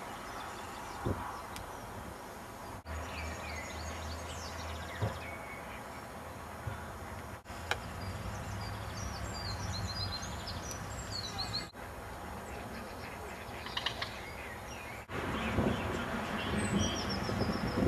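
Small birds chirping and calling in short, repeated notes over a steady outdoor background noise.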